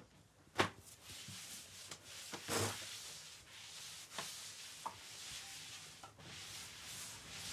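Foam mattress being handled on a wooden bed frame: a sharp knock under a second in and a heavier thump with rustling about two and a half seconds in, then a few light taps and rubbing.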